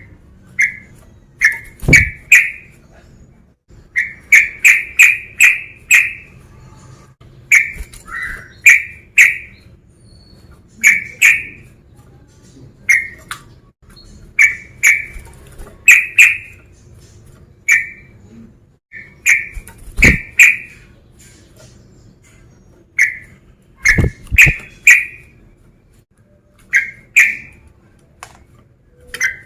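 Male sooty-headed bulbul (trucukan) singing loudly: short, bright whistled notes in quick groups of one to five, with brief pauses between groups, repeated throughout. This is the male's song calling out rivals.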